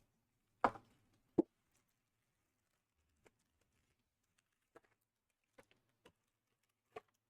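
A few light, scattered knocks and taps of a cardboard trading-card hobby box being handled and opened on a table, the two loudest close together about a second in.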